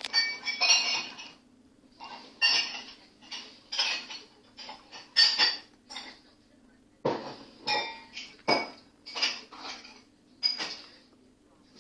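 Dishes being washed by hand: plates, pots and cutlery knocking and clinking together in an irregular series of sharp clatters, some ringing briefly.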